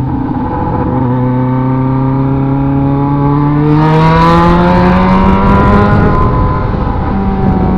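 Motorcycle engine under way, its pitch climbing slowly for several seconds as it accelerates and getting louder, then dropping about six seconds in as the throttle eases or a gear changes, and running on steady.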